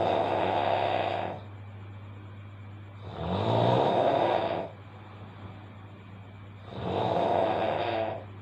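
A person snoring loudly in a slow, even rhythm: three long snores, each about a second and a half, roughly three and a half seconds apart. A steady low hum runs underneath.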